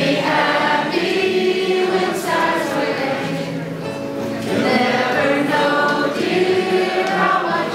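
A roomful of people singing a song together, many voices in unison, in phrases with short breaths between them.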